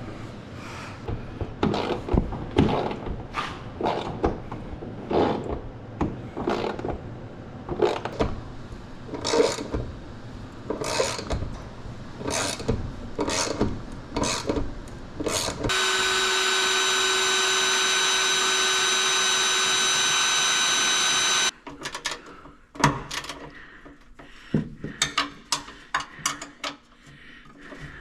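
Hand-tool work on metal while bolting in a generator exhaust: a run of irregular clicks and knocks, then a power drill running at a steady whine for about six seconds that cuts off suddenly, followed by a few more clicks.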